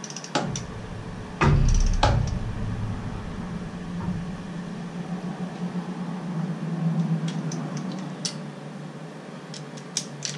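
Torque wrench working the aluminum intake manifold bolts down to about 19 foot-pounds: sharp metallic clicks and knocks, a few near the start with the loudest about a second and a half in, and a few more near the end. A steady low hum runs underneath.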